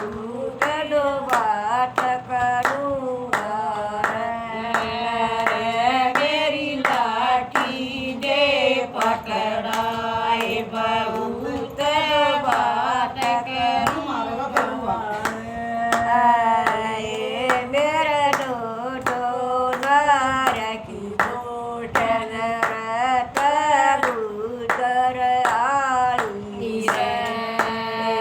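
A woman singing a Haryanvi bhajan, with steady hand-clapping keeping time.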